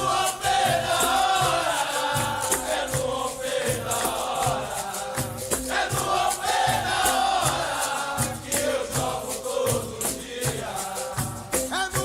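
Capoeira music: a sung chant with chorus voices over a berimbau and caxixi rattle, with a steady low beat about twice a second.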